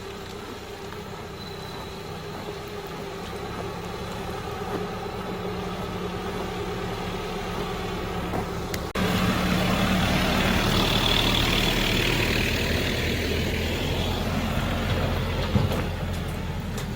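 A vehicle engine running steadily and gradually getting louder, with a sudden step up in level about nine seconds in.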